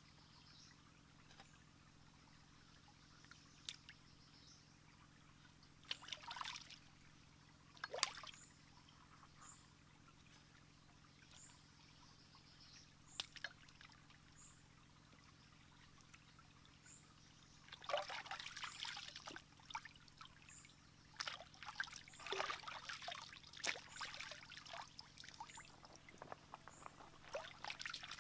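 Water splashing and trickling in a shallow stream as raw chicken pieces are rinsed by hand, with a few sharp knocks of a knife cutting through chicken against a rock in the first half; the splashing gets busier and louder about two-thirds of the way through.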